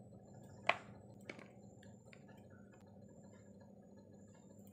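Scissors snipping through young vegetable fern shoots: a few sharp clicks, the loudest about a second in and a second one soon after, then fainter snips.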